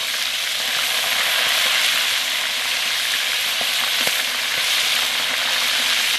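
Banded bullfrogs deep-frying in hot oil in an aluminium wok, sizzling steadily while a metal spatula stirs them through the oil. A couple of light clicks of the spatula against the pan come about four seconds in.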